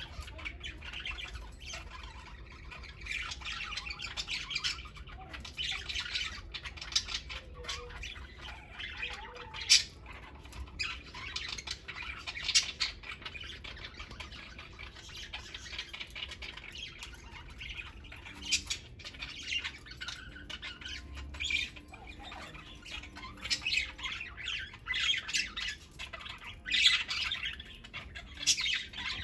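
Pet budgerigars chattering in a cage: a near-continuous high warble broken by sharp, louder squawks and chirps every few seconds.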